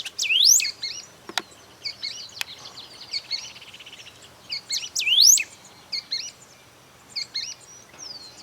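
Golden-billed saltator singing: two loud phrases, about half a second and about five seconds in, each ending in a long whistle that sweeps upward. Shorter chirping notes fill the gaps, with a brief rapid trill in the middle.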